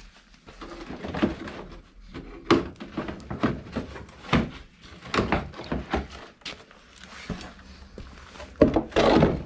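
Irregular knocks, clicks and clatter of hand tools and parts being handled, with a louder scraping rattle near the end.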